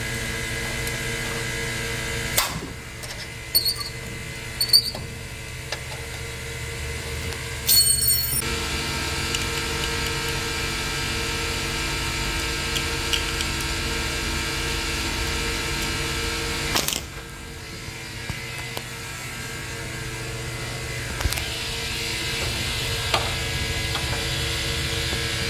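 A steady mechanical hum made of several tones, dipping briefly about two-thirds of the way through. Over it come a few sharp metallic clicks and clinks of hand tools, a wrench and screwdriver, working the lugs of a three-phase terminal block.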